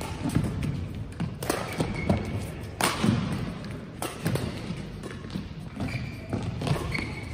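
Badminton doubles rally: several sharp racket strikes on the shuttlecock, the clearest about one and a half and three seconds in, among thudding footfalls and a few short shoe squeaks on the court floor.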